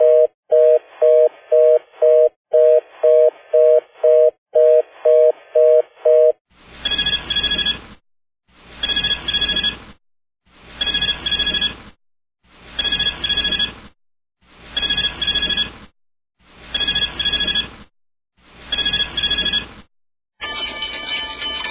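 Telephone sound effects: for about six seconds a low two-tone telephone signal beeps in rapid pulses, in short groups like a busy signal. Then a telephone bell rings seven times, each ring about a second long, one every two seconds. Just before the end a different, unbroken high-pitched ring starts.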